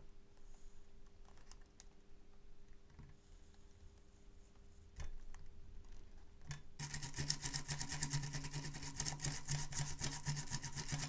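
Faint ticks and scraping of soldering work on a circuit board, then about seven seconds in a louder, rapid, even mechanical buzz with a low hum starts from a tool worked on the board.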